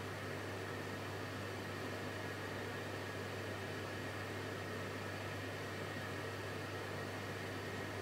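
Electrolux PerfectCare 600 front-loading washing machine running mid-programme: a steady hum and hiss with no change.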